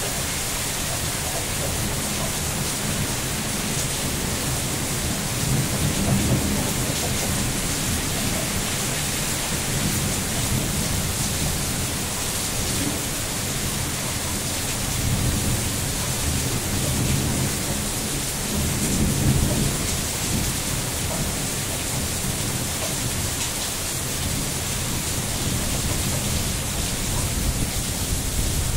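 Heavy rain falling steadily, with low rumbles swelling up about six seconds in and again around sixteen and nineteen seconds.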